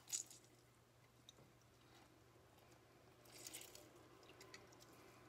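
Lemon half squeezed by hand over a bowl: faint wet squishing and crackling of peel and pulp, with a short sharp burst right at the start and a longer crackly one about three and a half seconds in.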